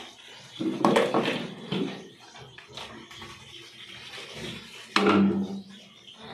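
Water splashing and sloshing as a wet, shampooed dog is bathed, with loud bursts of splashing about a second in and again about five seconds in.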